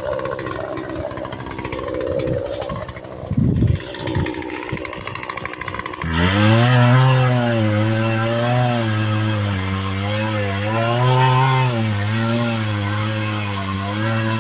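Two-stroke chainsaw cutting into a large pine. The engine sound is uneven at first, with a low knock about three and a half seconds in. From about six seconds in, a loud, steady engine note sets in, its pitch dipping and recovering as the saw bogs and picks up in the cut.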